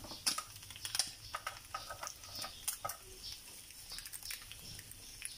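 Small metal spoon tapping and scraping against the nonstick cups of an electric egg-ball pan while quail eggs are turned, making irregular light clicks.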